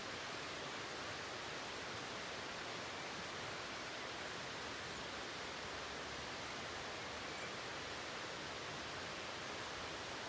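Waterfall's steady rushing water, an even hiss that holds one level throughout.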